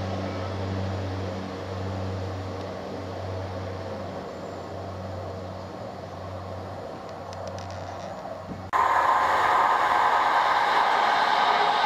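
A diesel multiple unit's engine drones with a steady low hum that slowly fades as the train pulls away. About three quarters of the way through, this switches abruptly to a much louder Class 158 diesel multiple unit approaching and running in alongside the platform, with loud engine and wheel noise.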